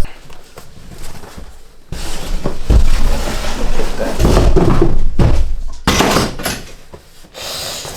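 Packaging being handled, a rustling, scraping noise with several dull knocks, starting about two seconds in and fading out near the end.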